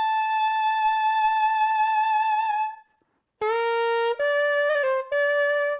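Soprano saxophone played solo: one long held high note with a slight vibrato that fades away, then after a short pause a quick phrase of several lower notes.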